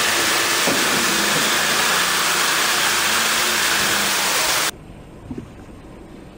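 Loud, steady rushing of a fast river in rapids, with a faint low hum under it. The rushing cuts off suddenly about four and a half seconds in, leaving a much quieter steady hum.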